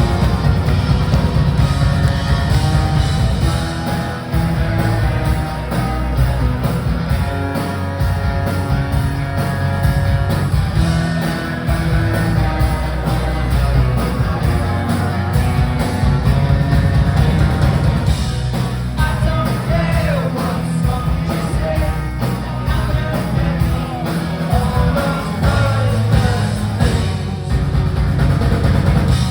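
A rock band playing live: guitars and drums, with singing.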